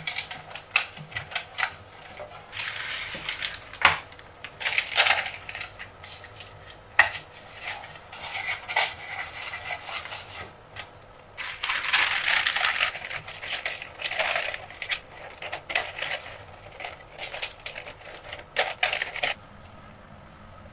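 A pastry brush scraping and clicking against the inside of a metal cake pan, then baking paper crinkling and rustling as it is pressed into the pan, with light taps on the metal. The rustling stops abruptly near the end.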